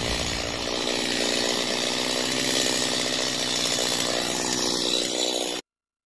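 Chainsaw running steadily; the sound cuts off suddenly shortly before the end.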